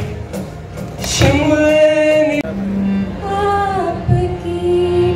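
Live acoustic performance of a Himachali Pahari folk song: held sung notes over acoustic guitar and cajón, with a few drum hits. Several voices are singing, women's among them.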